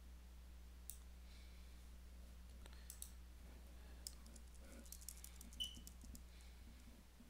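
Faint computer keyboard and mouse clicks: a few single clicks, then a quick run of key taps past the middle as text is deleted, over a steady low hum.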